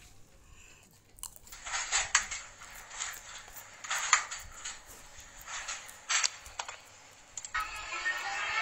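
Scattered irregular clicks and rustles, then music from the laptop's speakers starting near the end.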